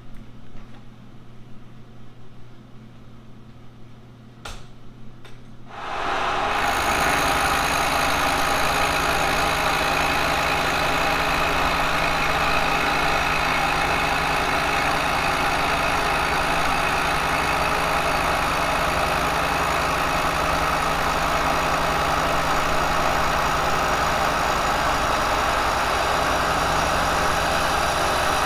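A Kearney & Trecker milling machine starts up abruptly about six seconds in, after a faint hum, and then runs steadily and loudly. A carbide face mill is taking a cut across a cast iron casting.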